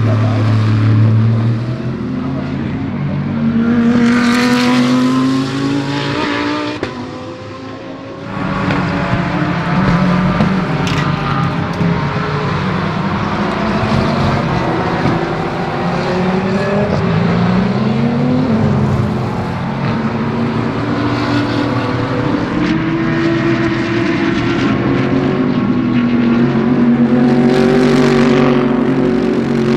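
GT3 race car engines at racing speed, their pitch climbing and dropping through throttle and gear changes as several cars go past one after another. There is a brief lull about seven seconds in.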